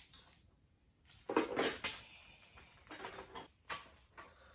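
Metal tools and parts clattering and knocking as a motorcycle front wheel is fitted: a loud rattle of under a second about a second in, then a few short sharp knocks.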